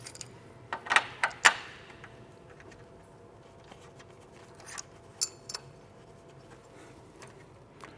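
Clamp being tightened down on a stainless steel tube on a steel welding table: a few sharp metal clicks and knocks in the first second and a half, then a couple more about five seconds in, one with a brief high metallic ring.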